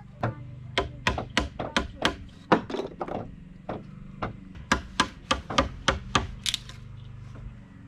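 Hammer striking a wood chisel to chop out a notch in an 8x8 cm timber post: a quick run of sharp knocks, about three a second, a short pause a little after three seconds in, then a second run.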